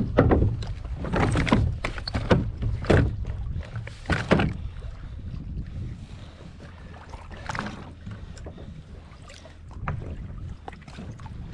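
Water splashing and sloshing against a kayak at sea, in a few strong strokes about a second apart over the first four seconds or so, then quieter. Wind rumbles on the microphone underneath.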